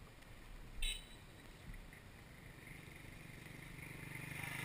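A motorcycle engine running, growing steadily louder over the last two or three seconds. A short high call sounds about a second in.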